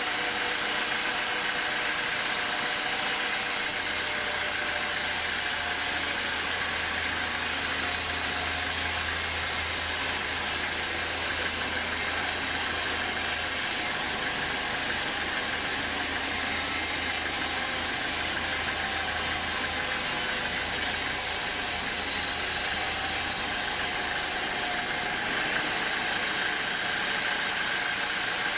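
Homemade band sawmill running steadily, its band blade sawing lengthwise through a teak log. A higher hiss and a low hum join a few seconds in and drop away a few seconds before the end.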